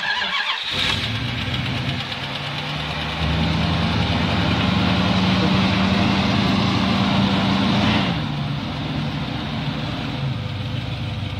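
Jeep engine starting, catching within the first second, then running at a raised speed for about five seconds before dropping back to a steady idle.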